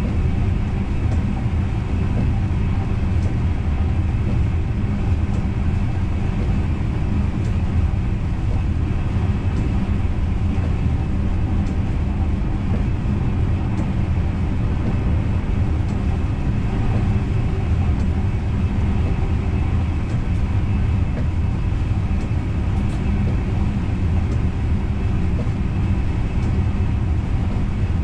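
NS Intercity train running steadily along the track, heard from inside the driver's cab: an even low rumble of wheels and running gear on the rails, with a few faint ticks.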